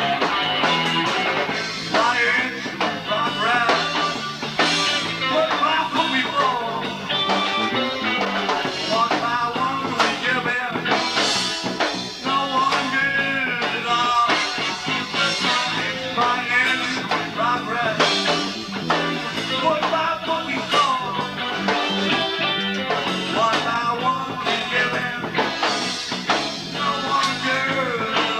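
A small band playing a rock song live: guitar lines over bass guitar, a drum kit and bongos.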